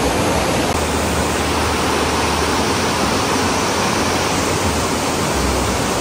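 Steady, loud rush of fast-flowing stream water, an even hiss with no breaks.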